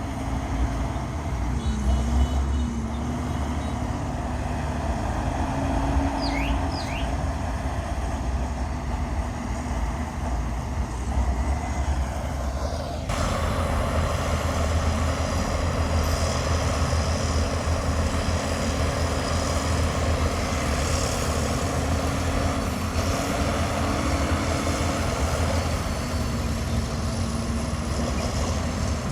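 Heavy diesel earthmoving machinery running, a steady engine drone over a low rumble whose pitch dips and rises as the load changes. The sound changes abruptly about halfway through, and two short high chirps come about six seconds in.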